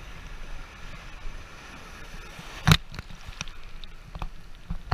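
Sea surf washing and foaming around a GoPro held at water level, with a low rumble of water on the camera housing and one sharp knock about two and a half seconds in, followed by a few small ticks.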